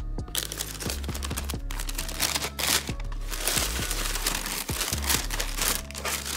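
Paper crinkling and rustling as a sneaker is unwrapped from its box, with background music underneath.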